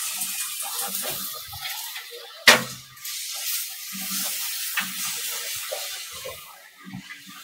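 Handling and rustling noises of parts being fitted into a PC case, with one sharp click about two and a half seconds in and a smaller one later.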